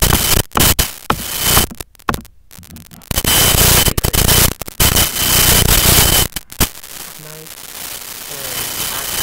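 Loud crackling rubbing and handling noise right on a laptop's built-in microphone, coming in bursts with a few sharp clicks.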